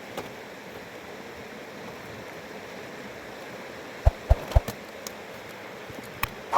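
A fast mountain river rushing steadily. Three sharp knocks come about two-thirds of the way through, with a couple of lighter clicks near the end.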